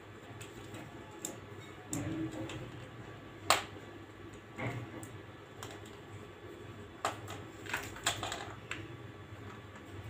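A rose-ringed parakeet rummaging with its head inside a carrier bag of toys: scattered, irregular clicks and rustles of the bag and the toys. One sharper click about three and a half seconds in is the loudest.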